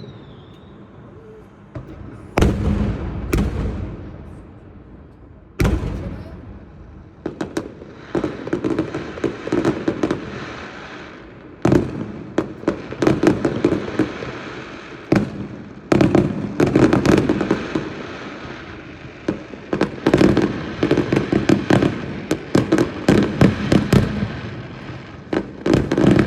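Fireworks going off: sharp bangs of shells bursting, several of them followed by long runs of rapid crackling, over and over.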